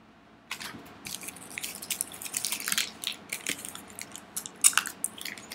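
A person chewing a sour cola hard candy: a run of wet mouth clicks, smacks and crunches starting about half a second in.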